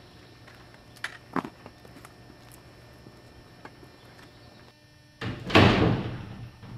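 One loud, noisy thud-like burst lasting about a second, a little past five seconds in. Two faint clicks come earlier.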